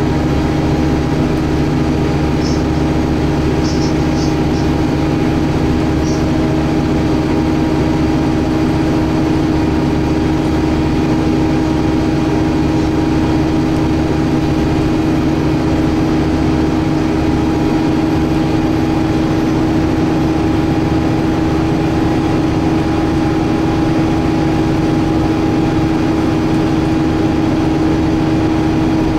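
Cabin noise inside a Scania K280UB city bus under way: its engine and drivetrain give a steady drone with a constant whine, holding an even pitch with no gear changes.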